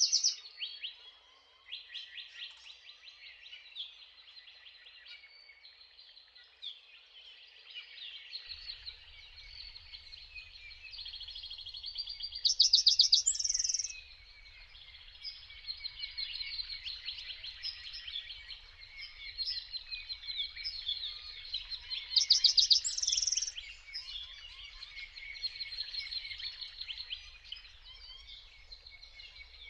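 Songbirds singing and chirping in a steady chorus, with two louder, rapid trills, about 13 and 23 seconds in.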